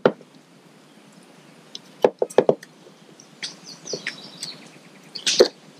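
A fillet knife and gloved hands working paddlefish meat off the cartilage on a ribbed plastic truck-bed liner: a few sharp knocks and clicks about two seconds in and again near the end. Birds chirp faintly in the background in between.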